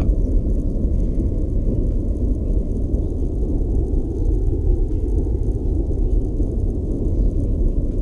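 Steady, deep low rumble with no distinct events or beat.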